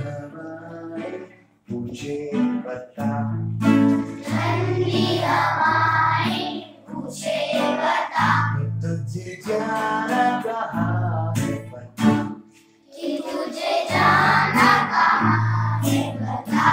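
A group of children singing a song together to guitar accompaniment, in phrases with short breaks about a second and a half in and again near 13 seconds.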